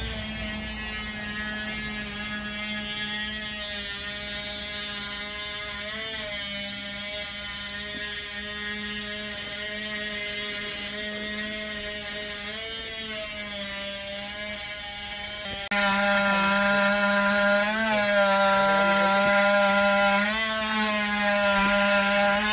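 A power tool's motor running steadily with a high, even whine, its pitch dipping briefly several times as if bogging under load. It becomes markedly louder about two-thirds of the way through.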